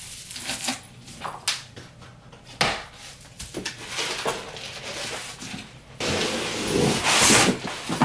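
Large cardboard box being opened and handled, with knocks and rubbing from the flat-pack desk panels inside. About six seconds in, a louder, longer scraping as the panels slide out of the box.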